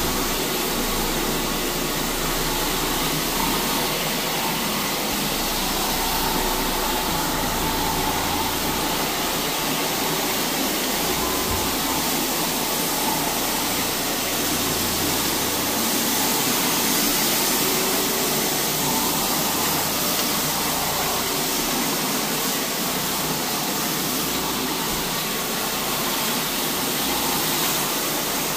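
175 rpm rotary floor machine running steadily, its motor whirring and its spinning pad scrubbing carpet during an encapsulation clean.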